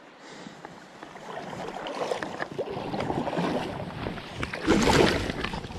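Water splashing and sloshing as a hooked rainbow trout thrashes at the surface close by. It builds from about a second in and is loudest about five seconds in.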